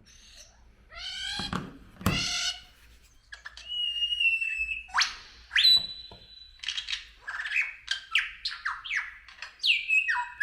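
Bird calls: two harsh calls about a second and two seconds in, then clear whistled notes and a quick run of short, falling chirps.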